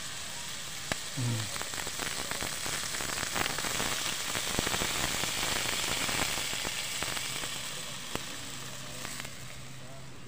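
Broth sizzling and crackling as it hits a hot wok of sautéed lampirong (windowpane oyster) meat, strongest a few seconds in and dying down toward the end as the liquid heats.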